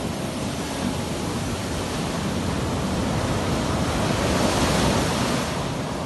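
Caribbean Sea surf breaking and washing up a sandy beach: a steady rush of white water that swells a little about four to five seconds in.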